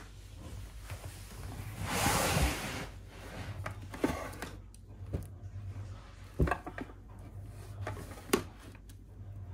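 A fabric storage bin sliding out from under a wooden shelf, a brief scraping rustle about two seconds in. Then a few light knocks and clicks as plastic spray bottles inside it are handled.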